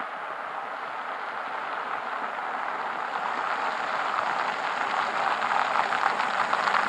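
Tyre hiss from a Kia K900 driving on wet asphalt, growing steadily louder as the car approaches and passes close.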